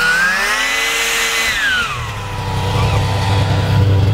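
Ski-Doo Formula snowmobile's two-stroke engine running as the machine passes close by. Its pitch rises, then drops steeply about two seconds in, settling into a lower, steady drone with a strong low rumble.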